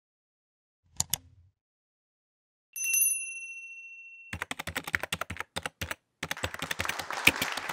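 Sound effects: two quick mouse clicks, then a single bell ding that rings out for about a second and a half, then rapid computer-keyboard typing.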